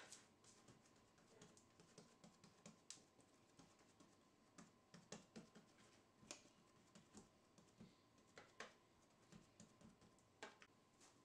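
Faint, irregular light taps and clicks, a few a second, as hands press bread dough down into a metal loaf tin and grip its rim.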